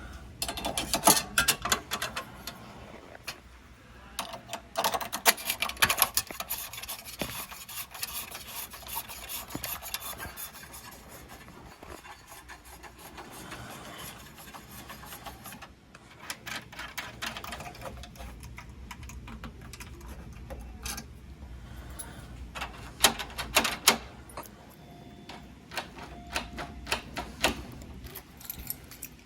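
Hand work on a door lock: small metal parts clicking, knocking and scraping as a Simplex mechanical pushbutton lock is fitted. The sharpest clusters of clicks and knocks come about a second in, again around five seconds, and near the end.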